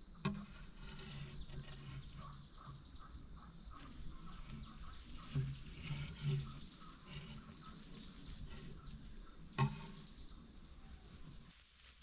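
A steady, high-pitched chorus of insects, with a few low thuds and a sharp knock about ten seconds in. The chorus cuts off abruptly near the end.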